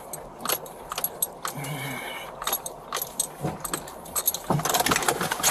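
Jangling and clicking of keys and metal gear on a police officer's belt as he moves in a patrol car's seat and gets out, growing busier and louder near the end.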